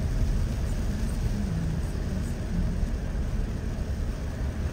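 Steady low rumble of a car driving on a wet road, heard from inside the cabin, with the hiss of tyres on the wet pavement.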